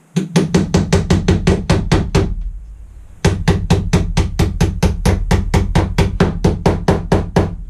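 Rapid hammer blows, about six or seven a second, driving a through bolt into thick wooden trim of a bed base: a run of about two seconds, a pause of about a second, then a longer run of blows.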